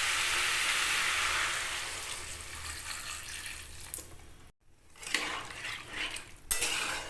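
Water poured into a hot kadai of spiced, sautéed pumpkin and potatoes, hissing as it hits the pan, the hiss dying away over about three seconds. A few seconds in, after a break, a spoon clatters against the pan.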